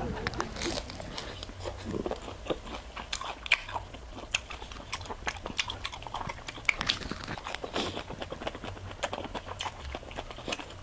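A person biting into and chewing crispy chicharon bulaklak (deep-fried pork intestine). Irregular crunches sound throughout.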